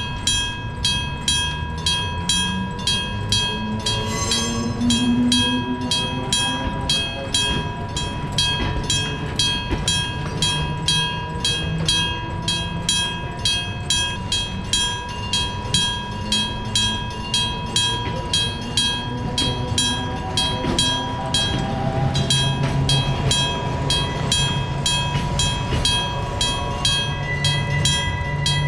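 Electric-bell railway level crossing ringing steadily, about two and a half strikes a second. Under it runs the whine of a train's nose-suspended (tsurikake) traction motors, rising in pitch twice.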